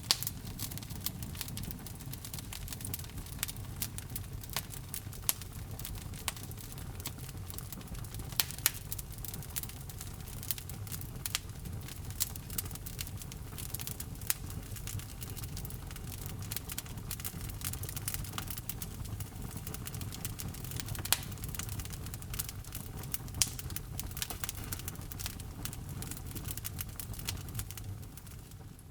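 Wood fire crackling in a fireplace: irregular sharp pops and snaps over a low, steady rumble of the flames, fading out at the very end.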